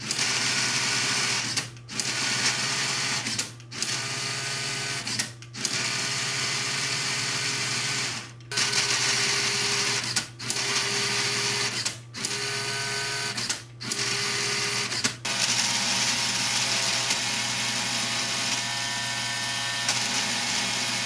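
Lego Technic electric motor driving a gearbox of plastic gears: a steady whir and gear whine that stops briefly and restarts about eight times, the whine changing from one run to the next as the motor reverses to shift gears.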